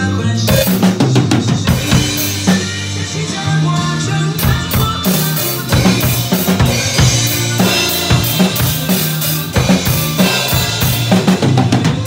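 Yamaha drum kit played over a backing track. The drums and cymbals come in about half a second in, with a steady beat of strikes over the track's bass line.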